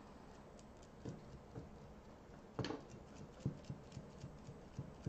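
Faint, irregular soft taps of a sponge dabbing white paint onto a ceramic spoon, coming a few times a second in the second half, with one louder brief knock about halfway through.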